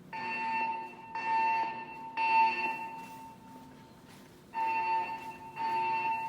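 Siemens MXL-V fire alarm system sounding its temporal alarm tone through the evacuation speakers: a steady tone near 1 kHz in three pulses of just under a second each, a pause of about a second and a half, then three more pulses.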